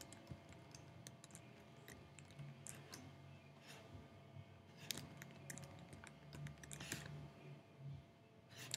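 Faint, irregular computer keyboard keystrokes and clicks.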